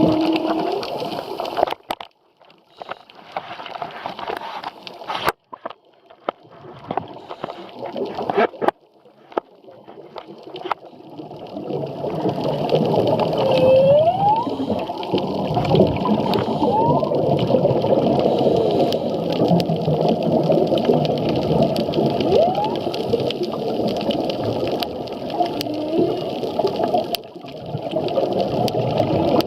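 Humpback whale song heard underwater: a few short rising squeals sweep upward over a steady rushing underwater noise in the second half. The first part is broken, patchy noise with a few sharp clicks.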